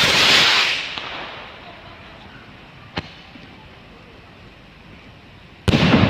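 Aerial firework shell: a loud launch blast at the start that fades over about a second, a single sharp crack about halfway through, then a loud bang as the shell bursts near the end.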